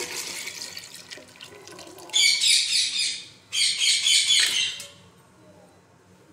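Thin kadhi being stirred with a spoon in an aluminium pot, liquid sloshing and spoon clicks. Two loud high-pitched chattering bursts about two and four seconds in, each lasting about a second.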